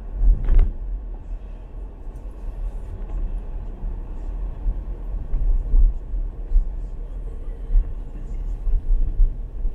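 Car driving slowly in city traffic: a steady low rumble of engine and road noise, with a brief louder sound about half a second in.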